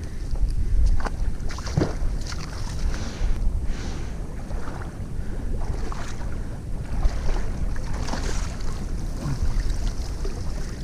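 Water sloshing and splashing as a mesh fishing sieve is worked through shallow muddy creek water, with wind rumbling on the microphone.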